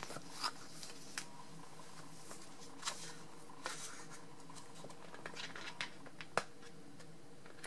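Scattered soft rustles, taps and clicks of a clear plastic sticker sheet and other small items being handled and set down on a wooden table, with one sharper click about six and a half seconds in, over a faint steady hum.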